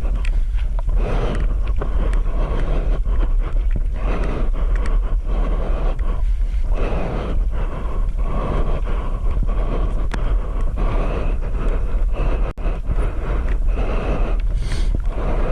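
Strong wind buffeting the microphone, a steady low rumble over rushing, splashing water, as it sounds while riding a pump foil board over the sea.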